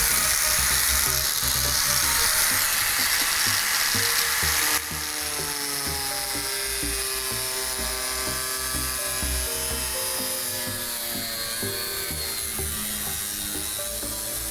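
A power tool runs with a harsh, high-pitched whine over background music and cuts off abruptly about five seconds in. After that there is only background music with a melody and a steady beat.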